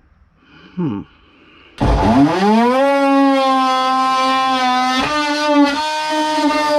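An electric power tool's motor is triggered briefly, then spins up with a quickly rising whine and runs at a steady pitch, with a short break about three seconds after it starts.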